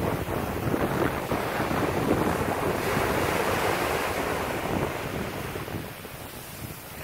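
Small waves breaking at the shoreline and washing up over the sand, a rushing, fizzing sound of foam. It is loudest through the first few seconds and eases off near the end as the wash runs out.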